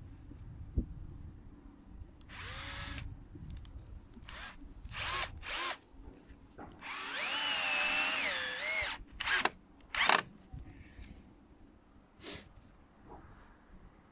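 Cordless drill running in a series of short trigger bursts against a wooden fence picket, with one longer run of about two seconds in the middle. In the longer run the motor's whine sags and recovers as the bit or screw works into the wood.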